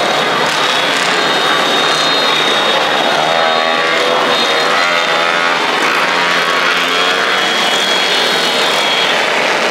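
Many motorcycles and scooters passing in a dense convoy, their small engines running and revving over one another in a steady din. A thin, steady high tone sounds through most of it.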